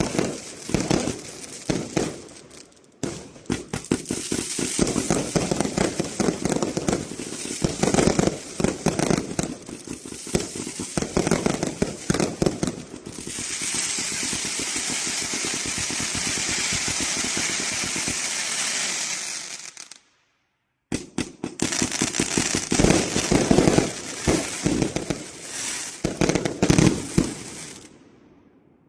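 A 399-shot firework cake firing dense, rapid volleys of shots. About 13 seconds in it turns to a steady hissing crackle for several seconds, then goes dead silent for about a second. Rapid shots follow, dying away near the end.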